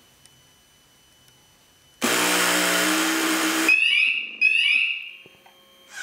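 Motorcycle security alarm sounding: a harsh, loud steady buzz for under two seconds, then a string of short rising electronic chirps.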